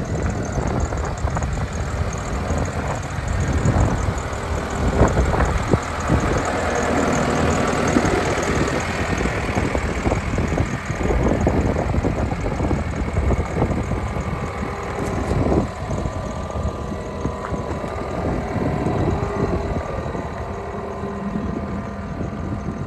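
John Deere 325G track skid steer's 4-cylinder turbo diesel running steadily, with frequent knocks and clanks over the engine, the loudest about 5 and 15 seconds in.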